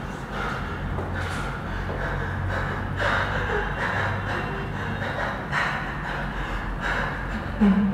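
A person breathing loudly and audibly, a series of rough, gasping breaths roughly once a second, over a low steady hum.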